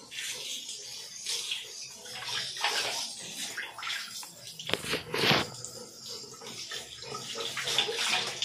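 Water from a handheld shower hose splashing over a dog's wet coat and onto a tiled floor, coming and going irregularly, with a louder splash about five seconds in.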